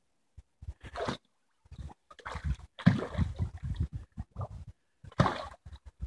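Water splashing and sloshing in several irregular bouts as a large northern pike thrashes at the surface.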